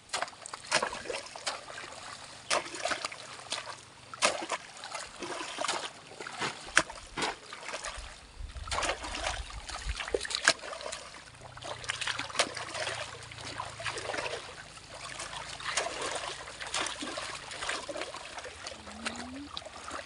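Irregular splashes and sloshing of shallow muddy water in a flooded paddy field, from bare feet wading and a crowbar jabbed into the waterlogged soil as the field is dug by hand.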